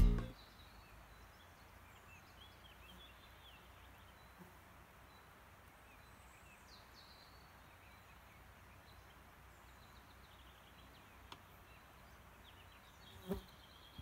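Faint countryside ambience with scattered small bird chirps. The background guitar music cuts off at the very start, and a single short thump sounds near the end.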